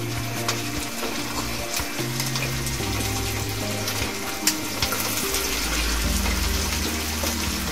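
Chicken drumsticks sizzling in a pan of hot oil: a steady crackling hiss with sharp spatter pops. A few louder pops come about four and a half seconds in, as a second drumstick is laid into the oil with chopsticks.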